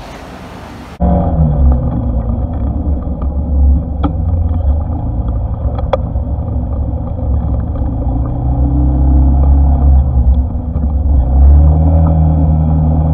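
Honda ADV150 scooter's single-cylinder engine and wind noise while riding, heard through its handlebar-mounted action camera, starting abruptly about a second in. The engine note drops soon after it starts, holds steady at cruising speed, and rises again near the end as the rider speeds up.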